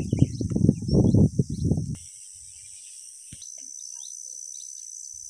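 Insects chirring in a steady high-pitched drone, which firms into one steady tone about three seconds in. Over the first two seconds a loud low rumble covers it, then stops suddenly.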